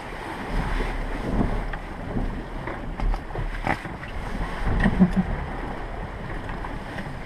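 Wind and sea noise aboard a small sailing yacht under way, with wind rumbling on the microphone and a few light knocks.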